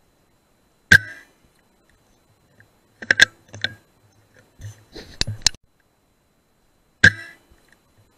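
Two shots from a BSA R10 .177 pre-charged pneumatic air rifle, each a sharp crack with a short ring, about a second in and again near the end. Between them comes a run of quicker, sharp clicks and knocks.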